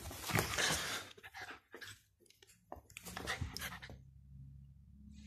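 A Pomeranian lunging and mouthing at the phone up close: a scatter of short scuffles and mouth noises, busiest in the first second and dying away near the end.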